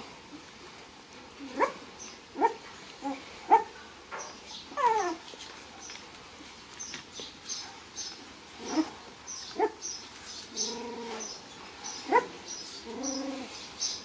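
Young puppies yelping and whimpering: a dozen or so short, high yips that drop in pitch, coming singly and in quick pairs. A couple of longer whines come near the end.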